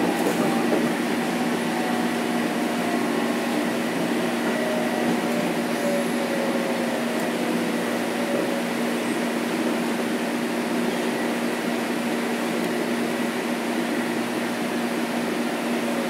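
Steady hum inside a Metro-North M7 electric multiple unit car, with a faint whine that slides slowly down in pitch over the first eight or nine seconds and then fades out.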